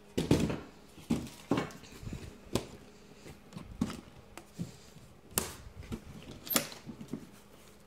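A baritone horn's hard case being handled: a series of sharp, uneven knocks and clicks from the lid and latches.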